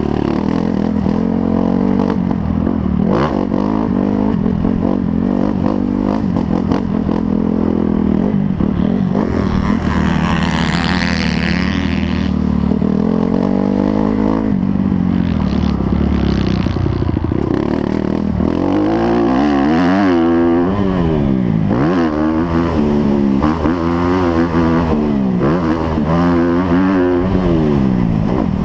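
Motocross motorcycle engines running, with a higher-pitched engine rising and fading about ten seconds in; in the second half an engine revs up and down over and over, its pitch rising and falling every second or so.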